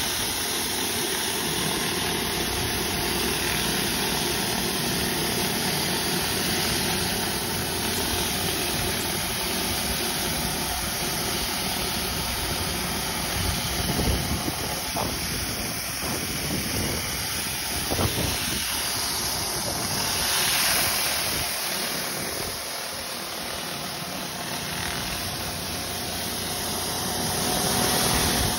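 Pressure-washer surface cleaner running over concrete: a steady hiss of high-pressure water jets spraying under the round housing, over the pressure washer's engine. Two brief knocks come about halfway through.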